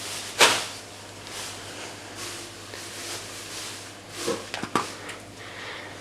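Screwdriver knocking and clicking against the plastic of an iMac G3 while being pushed into a button: one sharp knock about half a second in and a few quick clicks and scrapes near the end, over a steady low hum.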